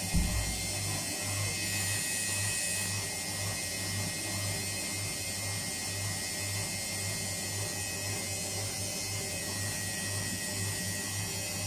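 Indesit WIUN82 washing machine on its spin cycle: a steady motor hum with a thin high whine and a low drone that pulses evenly as the drum turns. There is a short low thump just at the start.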